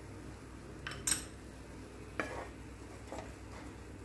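Wooden spatula stirring thick semolina halwa in a non-stick pan, scraping the pan bottom in three short strokes, the loudest about a second in.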